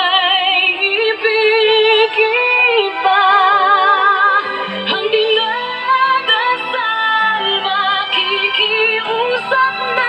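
Background music with a high female singing voice, held notes sung with wide vibrato over an accompaniment.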